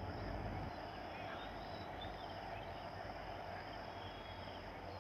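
Outdoor background: a steady high insect buzz and faint bird chirps over a low rumble.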